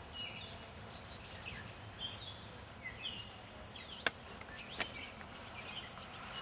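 Birds chirping with short, scattered calls over a steady outdoor background, with two sharp clicks a little past the middle.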